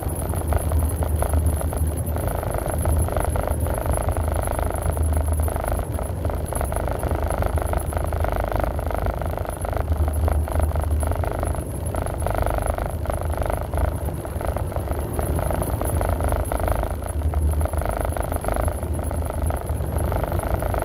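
Steady road and engine noise inside a vehicle's cab at highway speed, with a low hum that swells and fades every few seconds.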